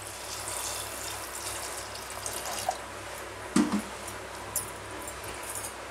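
Water poured into an aluminium pressure cooker over soaked chickpeas, splashing steadily for about three and a half seconds before stopping. A brief knock follows, then a few small clicks.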